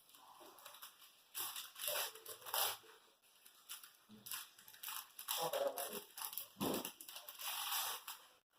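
Packaging being handled and crinkled in irregular bursts, typical of unwrapping a boxed hard drive.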